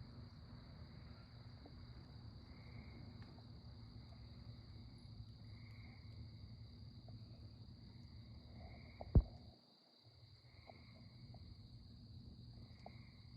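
Evening chorus of crickets: a steady high trill, with a lower chorus that swells about every two seconds. A single sharp click about nine seconds in is the loudest moment.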